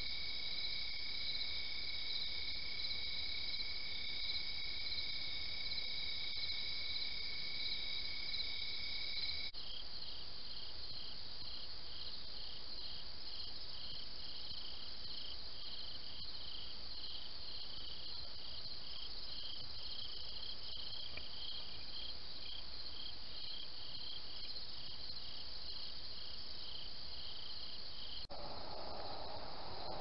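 Night insect chorus of crickets: a steady high trilling at first, then, after a change about a third of the way through, a rhythmic chirping of about two pulses a second over a continuous high trill. Near the end the chorus gives way to a different, lower outdoor background.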